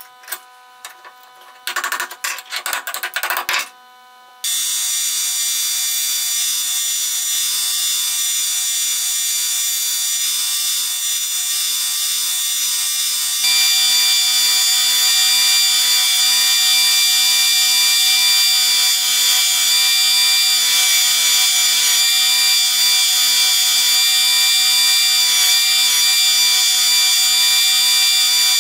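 A few seconds of knocks and clicks at a bench vise. Then a wide belt grinder runs: a steady hiss from the rusty cleaver blade held flat against the abrasive belt, over a steady motor hum. It gets louder about halfway through.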